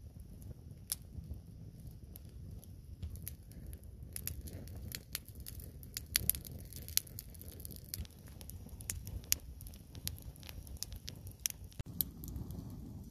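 Open wood fire burning in a ground pit, crackling with irregular sharp pops over a steady low rumble.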